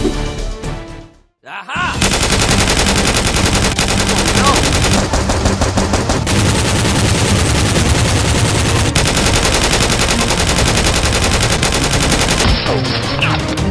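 Rapid automatic gunfire, machine-gun style, starting about two seconds in and running unbroken for about ten seconds.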